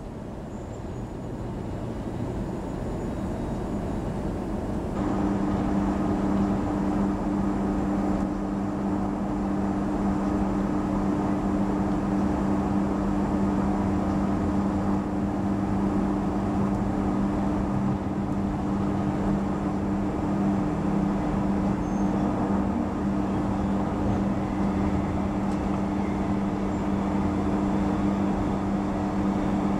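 Queensland Rail electric train heard from inside the carriage as it pulls away from a station, the running rumble growing louder over the first few seconds. From about five seconds in a steady low two-note hum joins it as the train runs on at speed.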